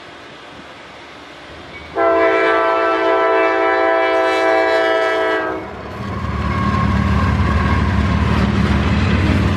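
A Norfolk Southern diesel freight locomotive's air horn sounds one long chord-like blast, starting about two seconds in and lasting about three and a half seconds. From about six seconds in, the lead locomotives pass close with a loud low diesel rumble and wheel noise on the rails.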